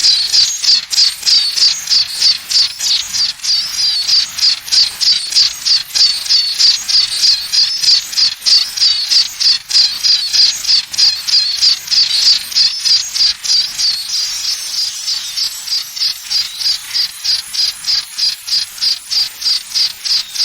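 A high-pitched pulsing chirp, about four pulses a second, repeating evenly and a little fainter in the second half. It is presented as a tinnitus sound, imitating the ringing heard in the ears.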